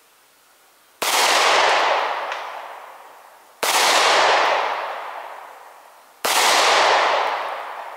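Three pistol shots from a 9mm handgun, fired about two and a half seconds apart, each followed by a long fading echo.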